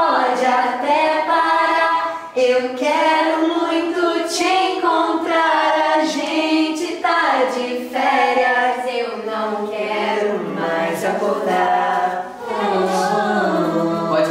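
Several voices singing a song together in a vocal rehearsal, holding long notes, with no instrument standing out.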